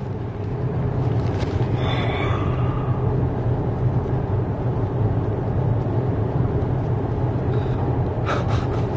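Steady low rumble of a moving vehicle, with a brief faint tone about two seconds in.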